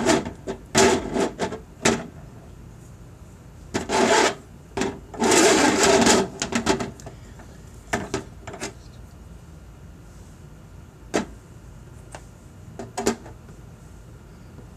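Plastic wrestling action figures handled in a toy ring: a few quick clacks and knocks, a stretch of rubbing and rustling in the middle, then single clicks now and then.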